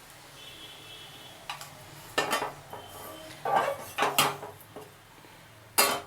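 Metal kitchen utensils clinking and clanking as a pan of boiled herbal decoction is strained into a glass, a string of sharp knocks with the loudest near the end.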